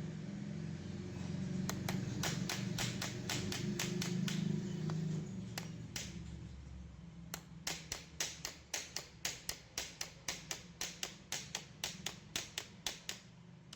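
A low steady hum that dies away about halfway through, then a long run of sharp, evenly spaced taps or clicks, about three a second, that stop shortly before the end.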